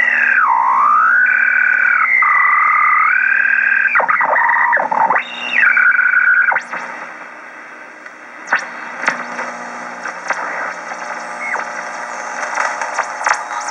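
Home-built three-tube regenerative HF receiver heard through its loudspeaker while the tuning knob is turned: a strong heterodyne whistle slides down and up in pitch for several seconds. About six seconds in it gives way to a quieter band hiss, with brief whistles sweeping past as stations are tuned through quickly.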